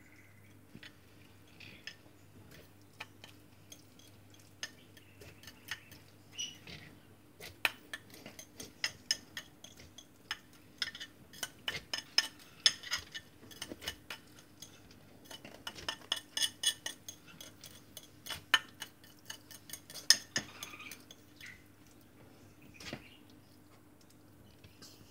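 Metal feeding tweezers clicking and tapping as ground turkey is picked from a clear plastic tub and fed to a tegu. The clicks come sparse at first, thick and fast through the middle, and thin out near the end, over a faint steady hum.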